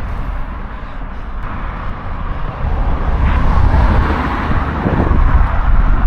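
Road traffic going by on the street, a motor vehicle passing close, which builds up in the second half.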